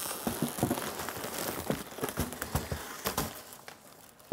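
Plastic bag crinkling and rustling, with foam packing rubbing, as a boxed 3D printer is pulled up out of its carton by the bag; irregular crackles that die away near the end.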